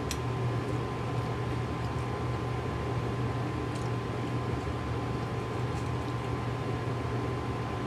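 A steady low hum with a thin, steady high tone over a hiss, and a few faint ticks about a third and three quarters of the way through.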